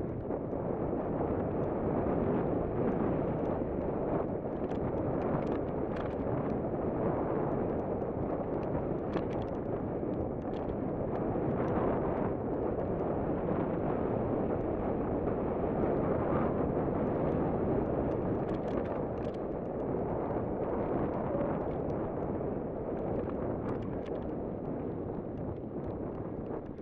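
Steady rush of wind on the microphone mixed with the rumble of a full-suspension mountain bike's tyres rolling fast over dirt and rock. Scattered sharp clicks and clatters come from the bike and stones as it rides over the rocky ground.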